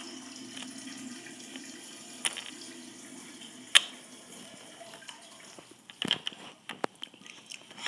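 Small plastic toy figurines handled and set down on a wooden sill, giving a few sharp taps and clicks, the loudest just before the middle and a quick run of them near the end, over a faint steady background hiss.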